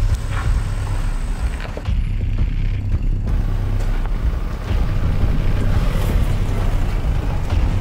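Chevrolet Colorado ZR2 pickup crawling an off-road dirt and rock trail: a steady low engine rumble, with a few sharp knocks from the tyres and chassis over the rocks.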